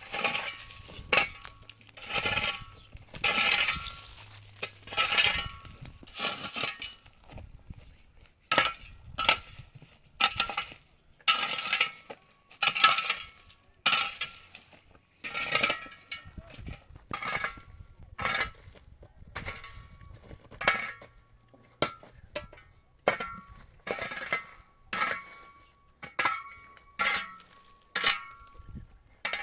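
Metal kitchenware clinking and clattering over and over, about one knock a second, each knock ringing briefly.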